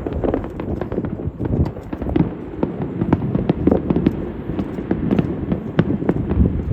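Fireworks going off: a dense run of irregular pops and crackles over a low rumble.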